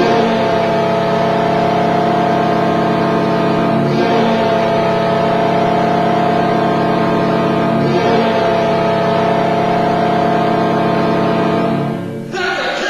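NHL arena goal horn sounding one loud, steady chord-like blast that starts suddenly and holds for about twelve seconds, with slight breaks about four and eight seconds in. Near the end it gives way to music and crowd noise.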